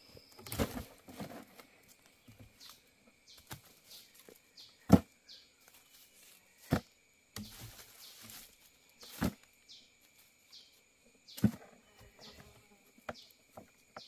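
Bamboo shoots being cut off: five sharp cracks, spaced irregularly a couple of seconds apart, the second one the loudest.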